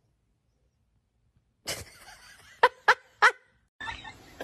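A pet animal gives three short, sharp calls in quick succession, after a near-silent start.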